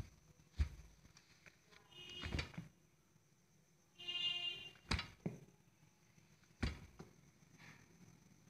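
A few sharp knocks and clicks, the loudest about five seconds in, with a short squeak just before it, over a faint steady high whine.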